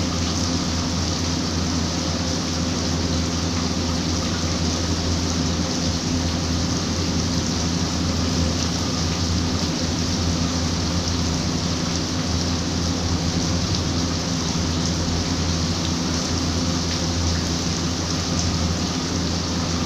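Steady rain falling and splashing on a tiled rooftop terrace, an even hiss that does not let up, with a steady low hum underneath.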